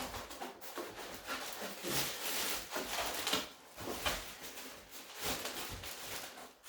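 Packaging being handled while parts are lifted out of a box: irregular rustling and crinkling in uneven bursts, with a few soft bumps.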